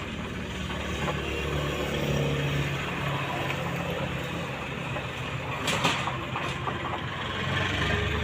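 A steady low machine hum, like a motor running, with a sharp click about six seconds in.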